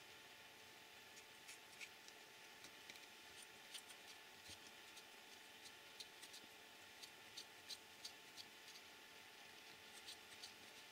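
Faint, irregular small clicks and ticks of pliers and small plastic and metal parts being handled while an RC car's oil shock absorber is assembled, over a low steady hum.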